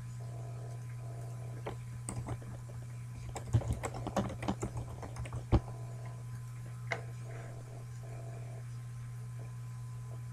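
Computer keyboard typing: a quick run of keystrokes from about two to six seconds in, ending in one sharper key press, then a single click about a second later, over a steady low hum.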